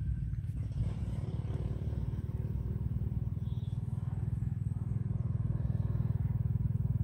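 An engine running steadily, a low, even rumble with a fast regular pulse.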